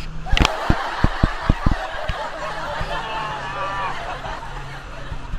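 Several people laughing and calling out, over a steady low engine hum from the jet ski. A sharp knock comes just after the start, followed by a quick run of low thumps over the next second or so.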